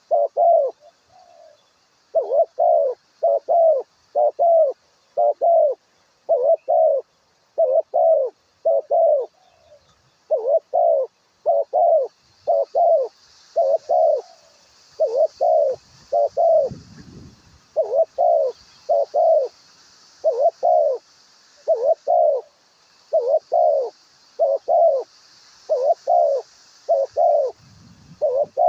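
A dove cooing over and over: short, arched coos repeated in quick groups, one or two a second, with a faint high hiss behind.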